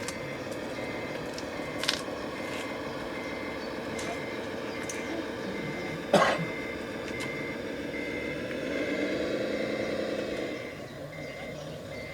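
Reversing beeper of a radio-controlled construction truck, a high beep repeating about twice a second over the steady hum of its motor. A sharp knock sounds about six seconds in.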